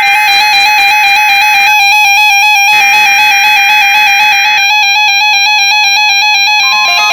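NOAA Weather Radio SAME header tones: raspy bursts of digital data, each just under two seconds long with about a second between them. They play over electronic keyboard music that alternates quickly between two notes. A steady tone comes in near the end, the start of the weather radio warning alarm tone.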